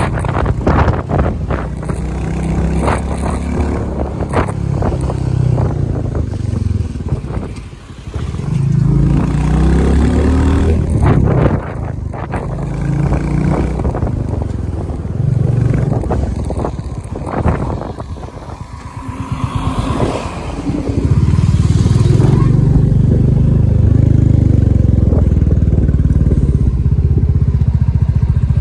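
Royal Enfield Bullet's single-cylinder engine running under way, heard from the pillion seat, its pitch rising and falling as the rider works the throttle and gears and growing louder and steadier for the last several seconds. Wind rushes and buffets over the microphone.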